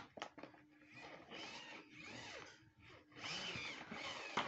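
Plastic toy van's wheels and gearing whirring as it is pushed along, twice, each time rising and then falling in pitch, with a sharp knock near the end.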